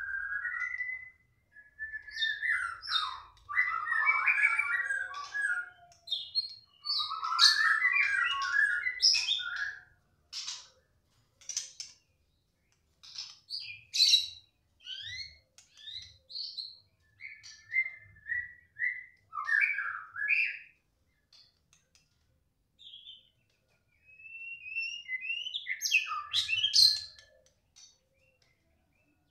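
White-rumped shama singing in bursts of varied whistled phrases and fast chattering notes, with short pauses between bursts.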